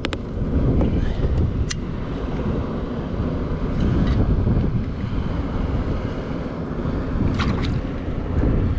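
Wind buffeting the microphone: a loud, uneven low rumble, with a couple of light clicks or knocks, one at the start and one about two seconds in.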